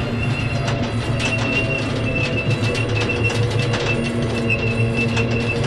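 Armored military vehicle's engine running steadily as it rolls slowly over solar panels laid on the ground, with a steady high whine and many sharp clicks and creaks.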